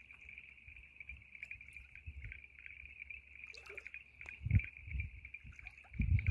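Steady high-pitched chirring of night insects, with low thumps about four and a half seconds in and a louder run of them near the end.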